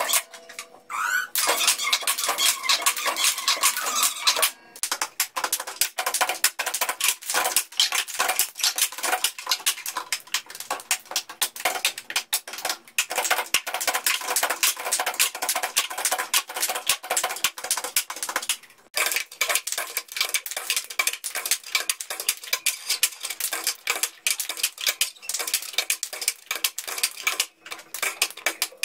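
Plastic cups knocked, slapped and passed on school desks in a fast cup-percussion rhythm, many quick knocks in a row, broken off briefly twice.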